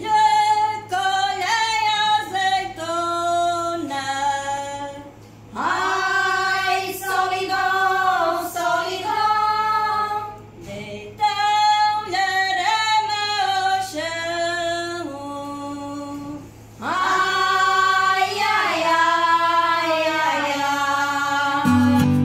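Unaccompanied women's voices singing a melody in long sung phrases with short breaks between them. A guitar comes in right at the end.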